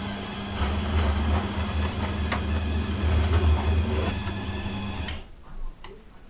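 Electric food slicer running with a steady motor hum as its round blade cuts through a loaf of wholegrain bread. The motor switches off suddenly about five seconds in.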